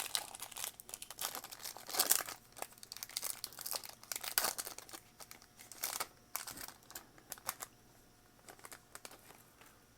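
Foil wrapper of a trading-card pack being torn open and crinkled in the hands, crackling in irregular bursts that thin out and stop about eight seconds in.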